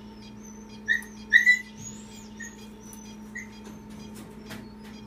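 A dog whining: a string of high-pitched, falling whimpers, with a few louder, sharper whines about a second in. A steady low hum runs underneath.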